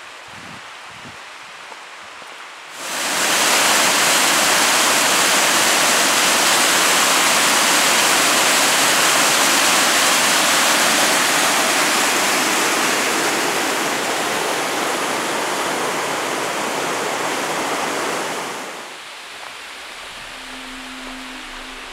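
River water rushing over rocks in a white-water cascade: a loud, steady rush that cuts in about three seconds in and drops away about three seconds before the end, leaving a quieter flow of water.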